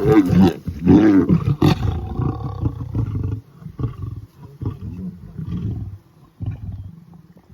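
Lion snarling and roaring at other lions, loudest in the first two seconds, then lower growls that come and go: a lion driving others off its wildebeest kill.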